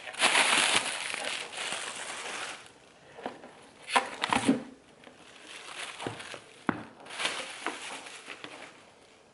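Plastic packaging crinkling loudly as it is pulled out of a cardboard shipping box, then a quick cluster of knocks about four seconds in and a couple of single clicks as the box and its contents are handled, with softer rustling near the end.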